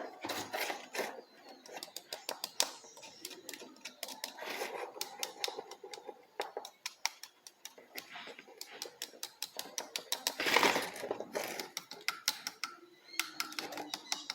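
Irregular light clicks and small metallic rattles of hand work on a motorcycle stator and its parts, with a louder rustling handling noise about ten seconds in.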